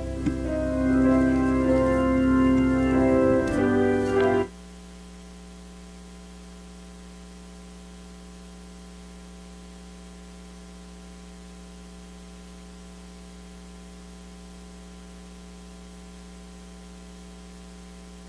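Organ playing held chords for about four seconds, then cutting off suddenly. A steady mains hum remains.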